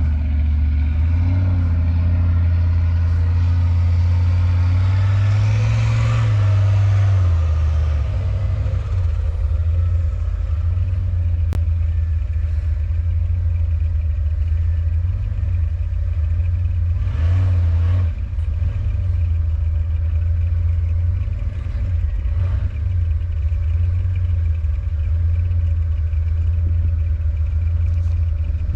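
Four-wheel-drive truck engine running while driving off-road, with a steady low drone. The pitch climbs to a peak about six seconds in, then settles back, with a few short knocks later on.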